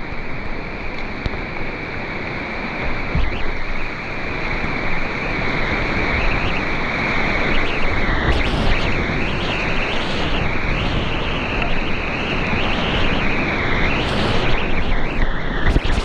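Whitewater rapids rushing: a loud, steady rush of river water, swelling and surging unevenly in the second half.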